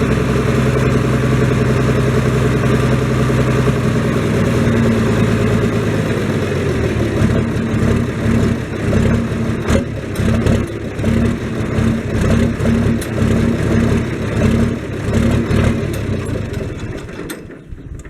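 Tractor engine running steadily. From about seven seconds in it turns into a regular pulsing about one and a half times a second, and it fades out near the end.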